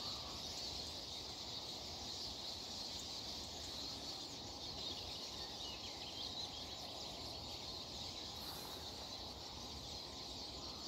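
A large flock of siskins twittering together: many overlapping high, thin chirps running on steadily.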